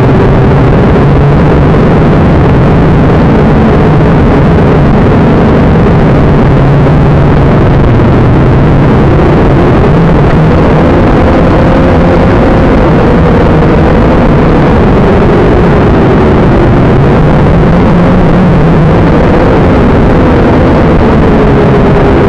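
Syma X5C quadcopter's four small electric motors and propellers buzzing loud and close, picked up by its onboard camera, the pitch wavering up and down as the throttle changes while it climbs.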